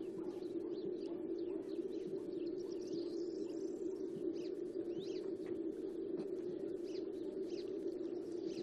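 Small birds chirping here and there over a steady low hum.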